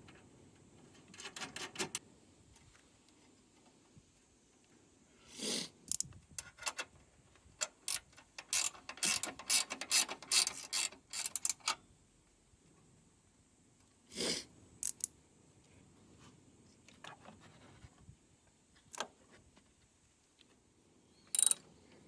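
Hand tools at work on a car: runs of rapid ratcheting clicks, as from a ratchet wrench turning bolts, with a few separate metallic knocks in between.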